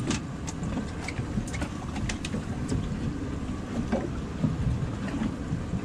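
Wind buffeting the microphone over the steady rumble of a small boat at sea, with scattered light clicks.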